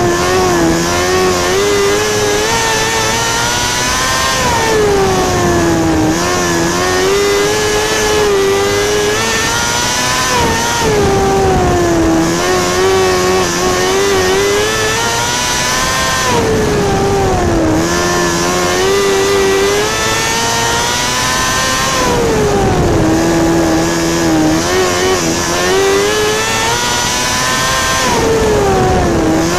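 Winged micro sprint car's motorcycle-derived engine at racing speed on qualifying laps. Its pitch drops as the driver lifts for each corner and climbs again down the straight, repeating about every five and a half seconds, once a lap, five or six times.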